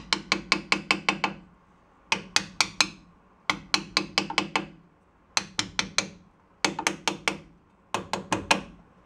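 Quick, light hammer taps on metal in six short bursts of four to nine strikes each, seating parts around the axle of a VW bus rear gear reduction box.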